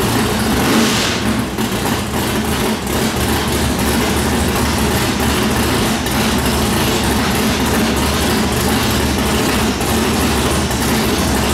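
Rebuilt 440 big-block V8 of a 1970 Plymouth Cuda drag car idling steadily and loudly, running on its first start since the rebuild that followed a broken connecting rod.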